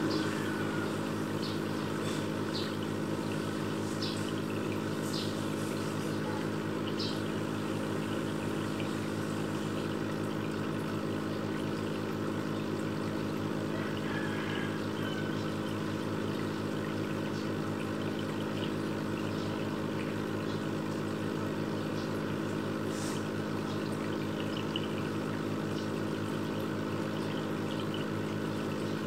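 Aquarium pump humming steadily, with water bubbling and a few faint small pops.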